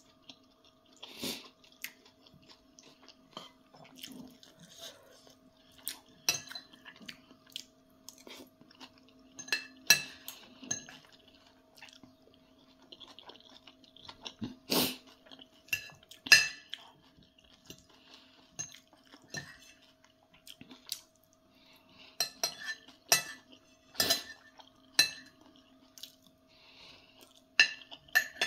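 Metal fork and spoon clinking and scraping against a ceramic plate at irregular intervals, with chewing between the strokes. A faint steady hum runs underneath.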